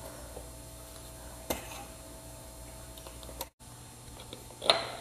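Scattered metallic clicks and clinks of hand tools working the intake valve cover off a small ATV engine, over a steady low hum. The sound drops out for an instant about three and a half seconds in, and the loudest clink comes near the end.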